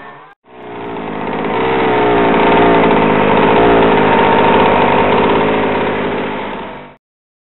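Small petrol engine of a large-scale RC car running and revving, its pitch wavering up and down. It swells in after a brief cut, holds loud, then fades and cuts off near the end.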